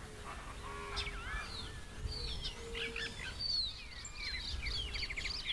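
Several wild birds calling at once: short chirps, whistled notes that glide up and down, and a quick series of rapid notes a little past halfway. A low background rumble runs underneath.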